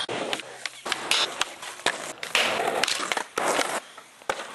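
Skateboarding: a quick string of sharp clacks and knocks from a skateboard hitting ramps and the ground, with the noise of its wheels rolling between the hits.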